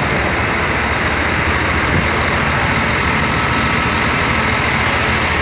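Steady drone of a heavy engine running at idle, an even low hum with a faint constant whine above it.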